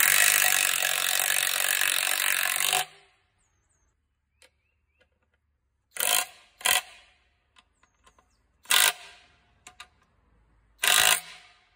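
Flex FX1451 24V brushless mid-torque impact wrench hammering a lag bolt into wood for about three seconds, then four short bursts of impacting later on.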